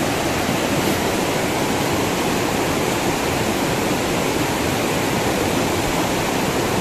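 Fast-flowing river rushing steadily, an even hiss of water with no breaks.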